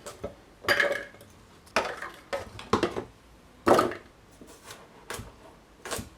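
Kitchen clatter: about seven irregular knocks and clinks of utensils and chopped vegetables going into a food processor bowl, a few with a brief ring.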